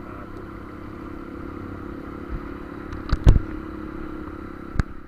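Motorcycle engine running steadily while riding. A few sharp knocks or clatters come about three seconds in and once more near the end.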